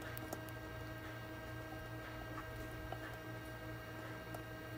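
Faint steady hum with a few soft clicks and wet squishes as a silicone spatula scoops sliced strawberries in sugar syrup from a glass bowl into a plastic jar.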